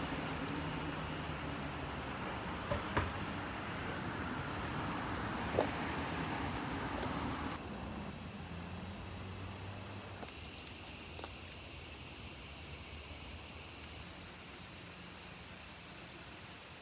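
Steady high-pitched chorus of insects shrilling in the trees, with a low steady rumble underneath. It jumps in loudness a few times, as at cuts between shots.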